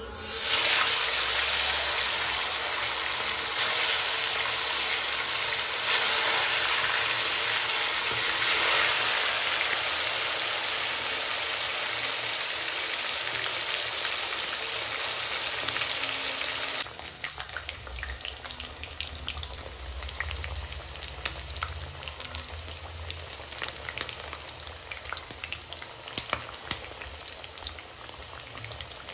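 Chicken pieces dropped into hot oil in a two-handled wok start frying at once with a loud, dense sizzle that swells a few times in the first nine seconds. About 17 seconds in it drops suddenly to a quieter frying hiss with frequent sharp crackles and pops.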